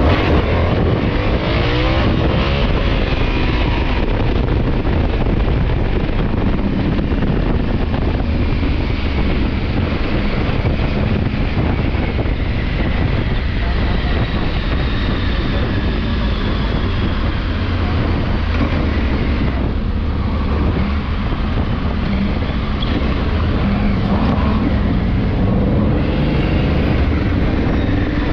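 Motorcycle engine running as the bike rides through town, with wind noise on the helmet-mounted microphone.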